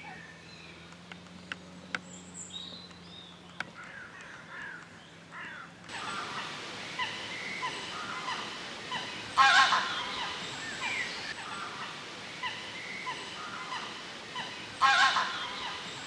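Small birds chirping and singing, with two loud goose honks, one about nine and a half seconds in and another near the end.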